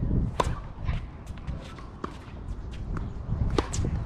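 Tennis rally on a hard court: a sharp racket-on-ball hit about half a second in, fainter hits between, and another loud hit near the end, with footsteps and shoe scuffs on the court surface.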